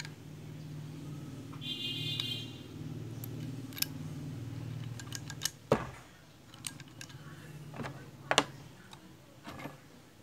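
Small steel parts of a hand riveter clicking and clinking as they are handled and fitted back into its head, a scatter of sharp clicks, the loudest about halfway and again about eight seconds in. A low steady hum runs underneath, with a brief high squeak about two seconds in.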